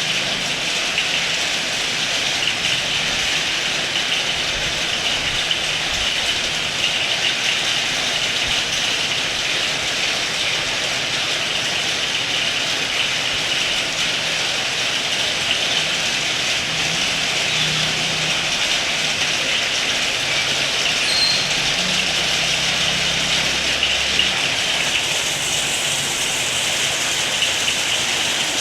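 Heavy rain falling in a steady hiss, with a low hum in the second half that comes and goes.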